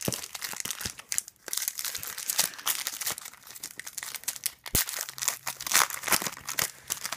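Foil trading card pack wrapper being torn open and crinkled by hand: a dense run of crackling with many sharp clicks, one louder snap near the middle.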